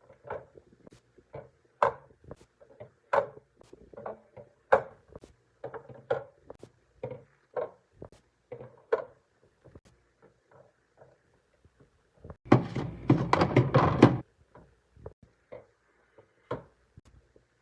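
Items being knocked and set down one after another while a mini fridge is restocked: irregular hard clunks and taps. About two-thirds of the way in, a dense clatter of things shifting lasts about a second and a half.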